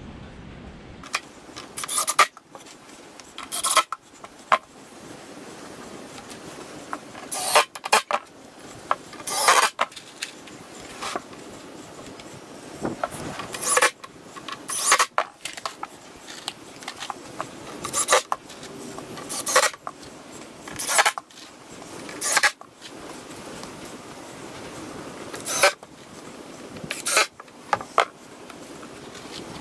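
Ryobi cordless impact driver driving wood screws into pine door boards, in over a dozen short bursts of a second or less with short pauses between screws.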